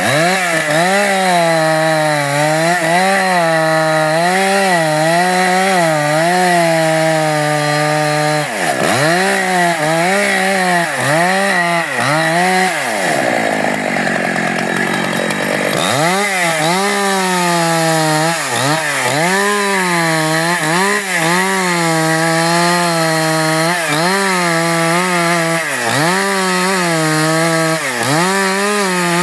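Husqvarna 268 two-stroke chainsaw cutting eucalyptus at full throttle, its engine note dipping and recovering about once a second as the chain loads up in the wood. About halfway through, the revs fall away for a few seconds, then the saw goes back into the cut.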